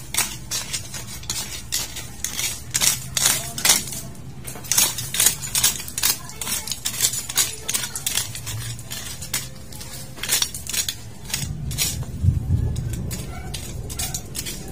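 Rapid, irregular clicks and light scrapes, several a second, with a low rumble about twelve seconds in.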